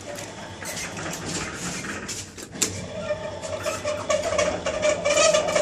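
Passenger lift in a block of flats: a sharp click about two and a half seconds in, then a steady hum from the lift that grows louder, over rustling and scuffing as people step into the cabin.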